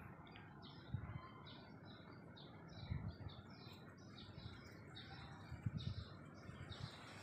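Faint chirping of small birds, a steady run of short high chirps at about three a second, with a few dull low bumps in between.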